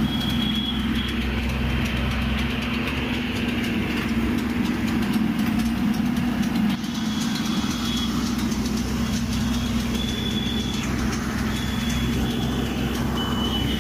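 Horizontal directional drilling rig's engine running steadily at idle, a constant low hum.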